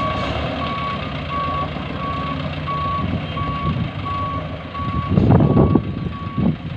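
Dump truck's reversing alarm beeping steadily, about three beeps every two seconds, over its diesel engine running as the truck backs up. Louder bursts of low rumbling come in near the end.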